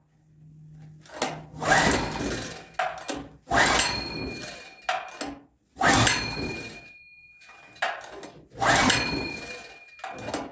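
Small gasoline generator engine being pull-started by its recoil rope four times, each pull a sudden whirring crank that dies away without the engine catching, with a fifth pull starting at the end. The engine won't start because no gasoline is reaching the carburetor: the fuel inlet hose is pinched.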